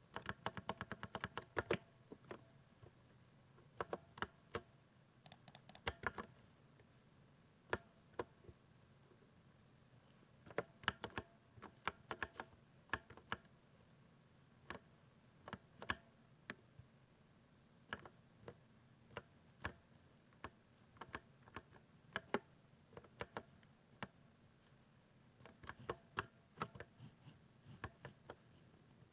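Typing on a 60% mechanical keyboard with silver linear switches: irregular runs of key presses, with short pauses between them.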